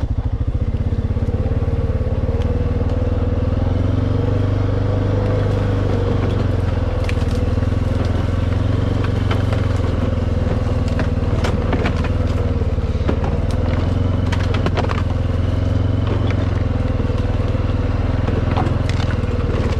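Four-wheeler (ATV) engine running steadily under way, with dry twigs and brush snapping, crackling and scraping against the machine several times.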